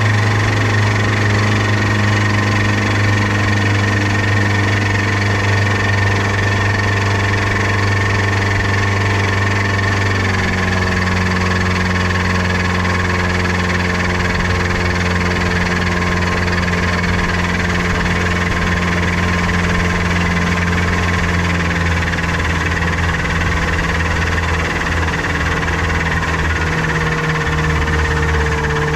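New outboard motor running during break-in. Its speed drops slightly about ten seconds in and shifts again near the end.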